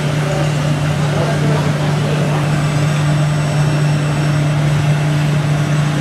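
Steady low drone that holds one pitch, over the general noise of a busy indoor hall with a murmur of voices.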